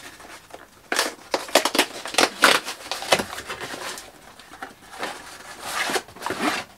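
Packaging rustling and crinkling by hand in a quick, irregular run of scratchy scrapes as a parcel is opened.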